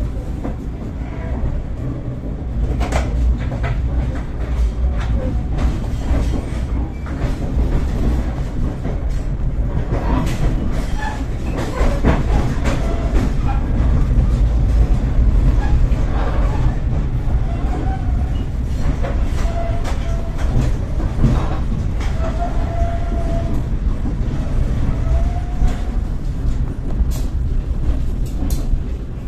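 Passenger train coach rolling slowly through station points, heard from inside the cabin: a steady low rumble with frequent clicks and knocks of the wheels over rail joints and crossings, and a few faint thin squeals in the second half.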